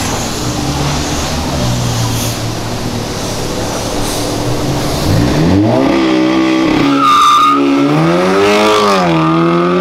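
Audi sedan pulling away and accelerating hard past the camera: after a few seconds of steady loud rumble and rush, its engine revs climb, drop at a gear change, climb again and settle, with a brief high squeal about seven seconds in.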